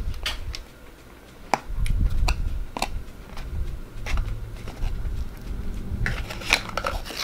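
A cardboard Big Mac clamshell box being handled as the burger is lifted out: scattered sharp taps and rustles, with a cluster of them near the end.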